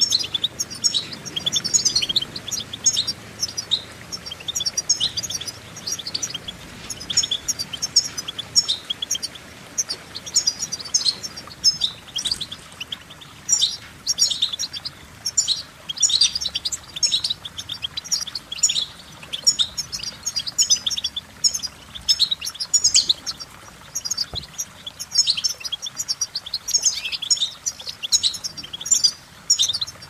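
European goldfinch singing: a fast run of twittering notes and buzzy trills, with a few short pauses.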